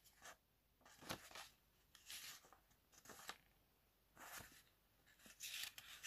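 Faint rustling and light clicks of a paper manual and box contents being handled, a few short brushes spaced a second or so apart.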